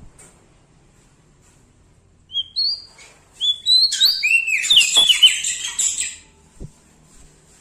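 Small songbird singing. After a quiet start come a couple of short rising whistled notes, then a rapid run of chirps and twittering for about three seconds.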